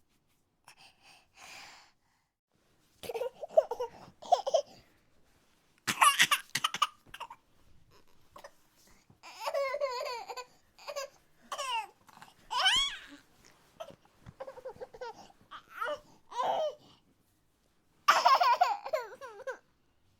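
A string of short, high-pitched non-speech vocal bursts with silences between, laughing and whimpering-like, some sliding up or down in pitch. The loudest bursts come about six seconds in and near the end.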